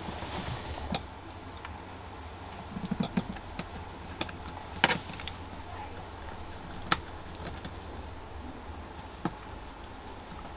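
Scattered small clicks and ticks as a model railway check rail is slid into the moulded plastic chairs of a turnout kit's sleeper base and pressed into place by hand, over a steady low hum.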